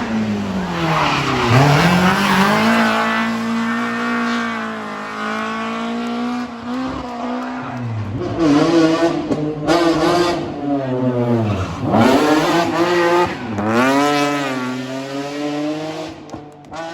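Rally car engine revving hard on a special stage. The engine note drops steeply and climbs again about a second and a half in, and twice more near the end, with rising runs through the gears in between.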